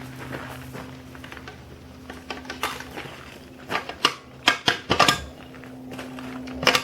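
A steady low hum under a run of sharp clicks and knocks from hard objects, the loudest in a cluster between about four and five seconds in and one more near the end.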